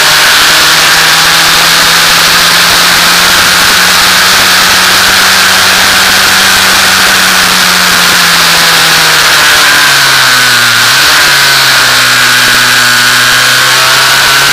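F2000 formula car's engine, heard onboard, pulling along a straight with its pitch creeping slowly up. About ten seconds in it drops as the car slows for a corner, then runs steady at lower revs. The engine is held to about 5000 rpm by an elusive glitch.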